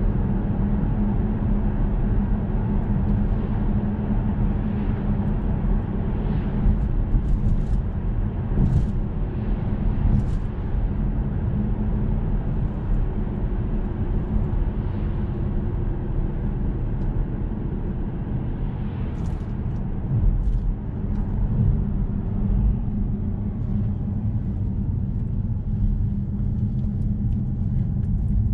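Audi S6 C7's 4.0 TFSI twin-turbo V8 running at a steady, light-throttle cruise, with tyre and road noise, heard from inside the cabin as a steady low rumble.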